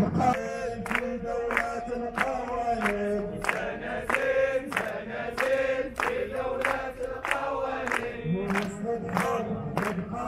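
A crowd of protesters chanting slogans in unison, with regular hand claps about every half second marking the beat.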